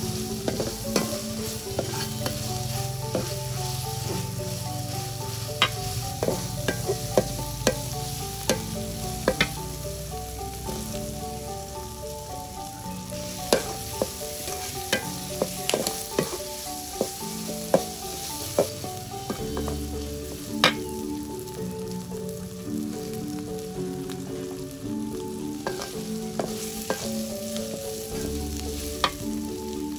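Food frying and sizzling in a pan while being stirred, with irregular sharp knocks of the stirring utensil against the pan. A soft background melody plays underneath.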